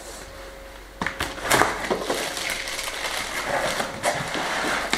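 Cardboard box and plastic packing being handled and opened: sharp knocks about a second in and again shortly after, then rustling and crinkling as a battery is worked out of the box.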